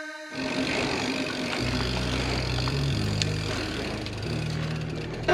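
Wind and rolling noise from a mountain bike ridden over pavement, heard from a camera on the bike. A low bass line of background music runs under it from about a second and a half in.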